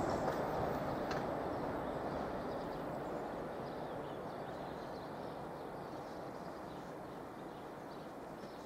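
Freight train's rumble fading away steadily as it moves off down the line. There is a faint click about a second in.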